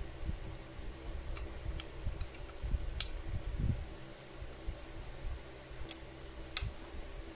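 Metal parts of an angle grinder cutting stand being handled and fitted together: light knocks and ticks, with a sharp metallic click about three seconds in and two more near the end as a hex key goes into a bolt on the arm plate. A faint steady hum runs underneath.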